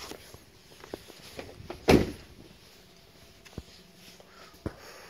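A pickup truck door shutting once, about two seconds in, with a few lighter clicks and knocks before and after it.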